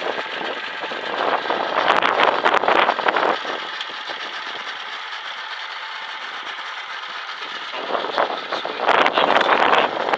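A small fishing boat under way in strong wind: a loud rushing of wind and water that swells about two seconds in, eases off through the middle, and swells again near the end.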